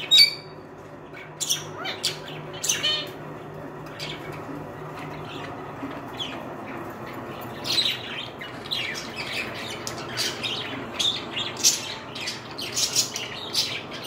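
Budgerigars chirping and squawking in short scattered calls, sparse at first and coming more often from about eight seconds in, over a faint steady low hum.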